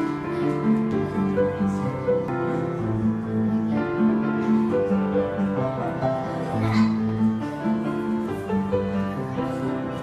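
Instrumental music playing: a slow melody of held notes over a low bass line.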